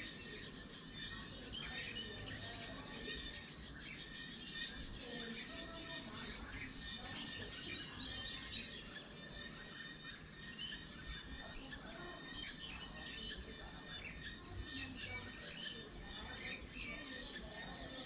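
Small birds chirping and twittering, many short calls overlapping throughout, over a low background rumble.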